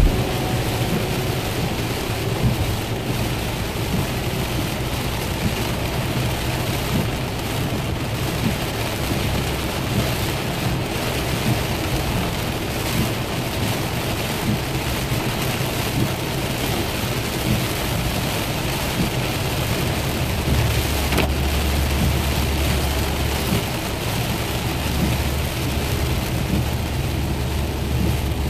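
Heavy rain drumming on a moving car's windshield and body, over steady tyre and road noise. A deep low rumble comes in about two-thirds of the way through.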